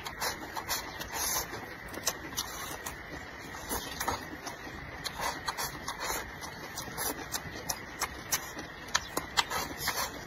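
Close-up eating sounds: chopsticks clicking and scraping against a porcelain rice bowl as food is shovelled into the mouth, with chewing. Many short, sharp, irregular clicks.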